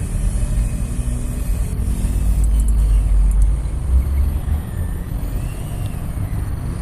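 Electric hand mixer with dough hooks running at low speed, a steady low motor hum as the hooks knead stiff bread dough.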